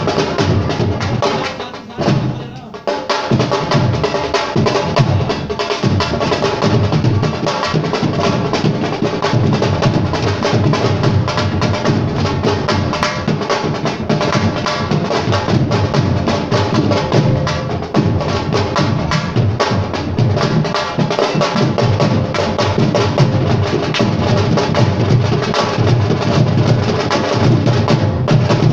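Live music led by fast, dense hand-drumming, with a brief dip about two seconds in.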